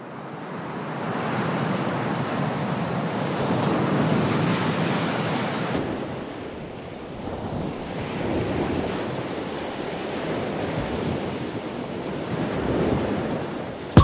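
Ocean surf: a steady rush of waves that fades in at the start, then swells and eases in slow surges every few seconds.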